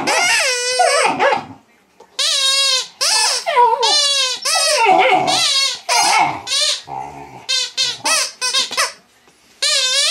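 A rubber squeaky toy being squeezed while a young English Mastiff puppy squeals back at it in high, wavering whines: a run of repeated squeals with short breaks between them.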